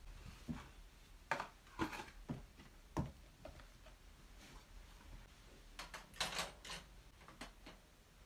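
Plastic skincare bottles, tubes and jars being handled and set down on a shelf: a series of light knocks and clatters, a few spread through the first three seconds and a quick cluster a little after halfway.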